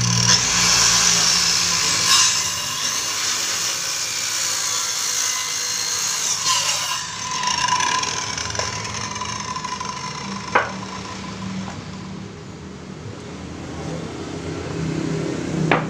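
Handheld electric circular saw starting up and cutting through a thick timber beam. About seven seconds in the motor is switched off and the blade spins down with a fading whine. A single sharp knock follows a few seconds later.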